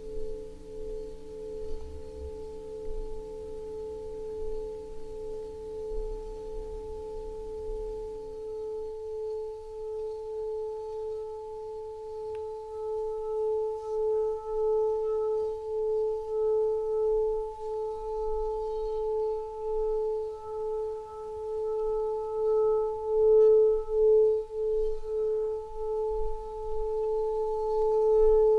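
Sustained drone of pure, singing-bowl-like tones: a steady middle tone that swells and fades in slow pulsing beats, with a fainter tone about an octave above. Two lower pulsing tones stop about eight seconds in.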